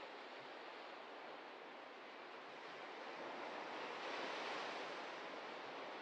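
Ocean surf washing on the shore in a steady rush, one wave swelling to a peak about four seconds in and then easing off.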